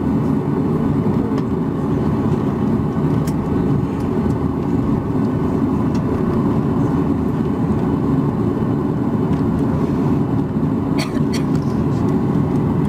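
Steady low cabin rumble inside a Boeing 737-800 taxiing after landing, its CFM56-7B engines at idle. Two short clicks near the end.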